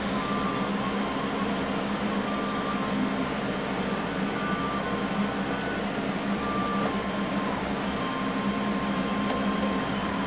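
Steady hum of an electric fan motor running, with a few faint scrapes of a carving knife shaving wood.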